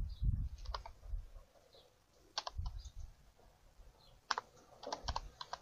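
Computer keyboard being typed on: scattered keystrokes in small irregular clusters with pauses between, with a few soft low thuds.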